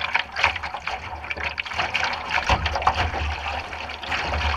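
River water gurgling and splashing around a canoe's bow as it runs over shallow rippled water, with many small splashes on a steady rush and a low rumble underneath.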